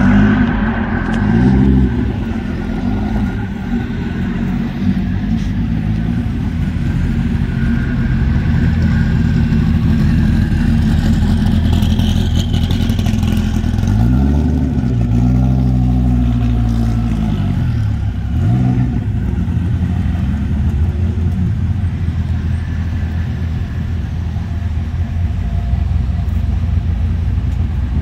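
Sports car engines running in a low, steady rumble as the cars roll slowly past, with revs blipped up and back down about a second in and twice more in the middle.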